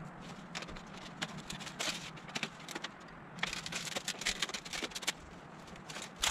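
Light metallic clicks, rattles and scrapes of hands working on a tent stove's chimney pipe, scattered at first, then a dense crackling run of rattles from about three and a half to five seconds in.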